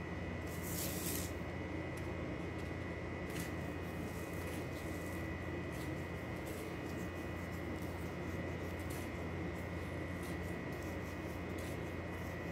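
Soft scratchy rustling and rubbing of dough being rolled and pressed in crushed-biscuit crumbs on a metal tray, over a steady background hum.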